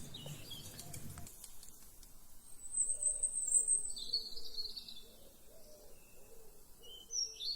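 Birds singing: high, thin chirps and short trills, with a lower wavering call underneath. A low rumble in the background stops about a second in.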